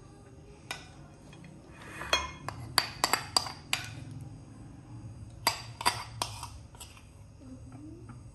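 A metal spoon clinking against the pan while scraping out cheese sauce: sharp clinks with a short ring, a cluster of about six a few seconds in and three more past the middle.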